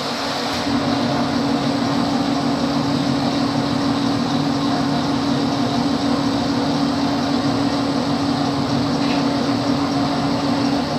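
PS-160 semi-automatic toilet paper rewinding machine running, winding the paper base into a log: a steady mechanical hum with a strong low drone over a broad hiss, coming up to full level in the first second.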